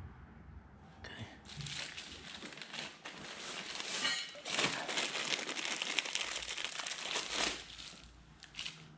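Clear plastic parts bag crinkling while metal bolts and washers are rummaged through and clink together. It starts about a second and a half in and dies away near the end.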